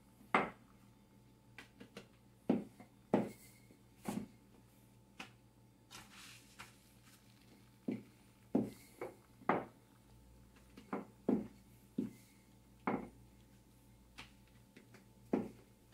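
Wooden rolling pin rolling out flour-tortilla dough on a countertop, giving about a dozen short knocks at uneven intervals as the pin rolls and is set down against the counter. A faint steady low hum runs underneath.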